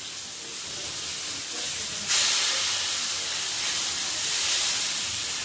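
A steady, airy hiss that grows louder and steps up about two seconds in.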